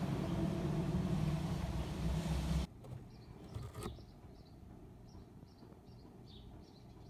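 Steady low outdoor background rumble that cuts off abruptly about two and a half seconds in. Then a much quieter interior with a brief rustle and a run of short, faint, high chirps about one or two a second.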